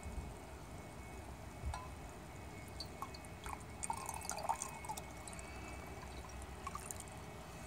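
Hydrochloric acid poured from a glass graduated cylinder into a glass beaker of potassium iodide solution: drips and small splashes, thickest in the middle, a few more near the end, with light clinks of glass.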